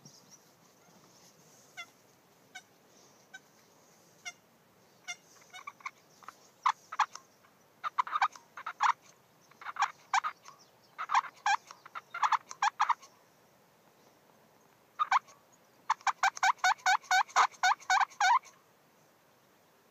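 Young wild turkeys (toms and jakes) calling: a few scattered single notes at first, then repeated runs of rapid, evenly spaced notes, the longest and densest run near the end.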